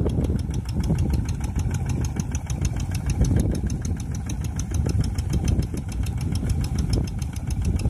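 Quick G1000 two-wheel hand tractor's engine running steadily under load while it ploughs deep, flooded paddy mud, with a fast, even ticking.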